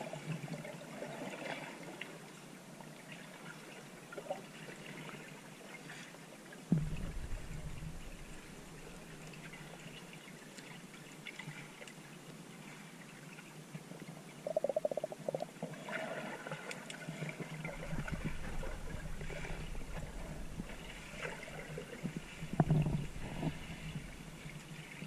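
Muffled underwater ambience picked up by a submerged camera: faint water noise with scattered small clicks. There is a dull knock about seven seconds in, a short buzz about halfway, and another knock near the end.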